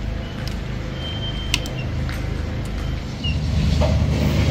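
Low, pulsing bass-heavy background music, which grows louder about three seconds in.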